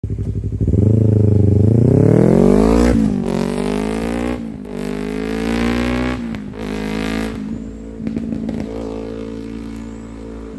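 Yamaha R25's parallel-twin engine revving hard: the pitch climbs, breaks off sharply and climbs again several times, then settles to a lower, steady run that slowly falls.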